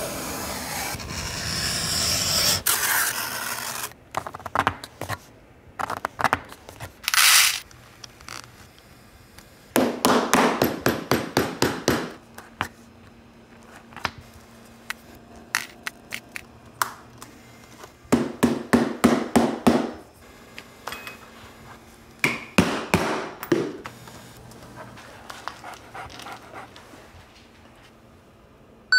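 A wooden strap cutter drawn through a leather hide with a steady scraping, then a run of leather hand-tool work: short scrapes and clicks, and two runs of quick taps, about five a second.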